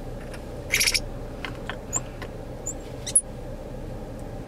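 Squirrel monkey calling with a few brief high-pitched chirps, with one louder, harsher call just under a second in. A steady low hum from the idling car runs underneath.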